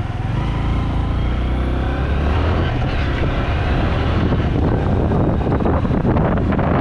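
Motorcycle engine pulling as the bike gathers speed, its pitch rising over the first few seconds, heard through a helmet-mounted action camera's built-in microphone. From about three seconds in, wind rushing over the microphone takes over.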